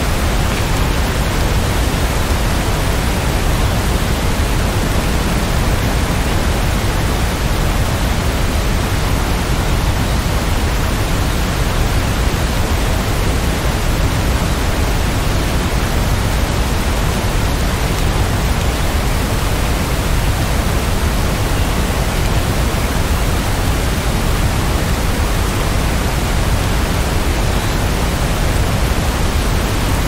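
Heavy rain falling steadily: an even, unbroken hiss, fullest in the low end, with no single drops or other sounds standing out.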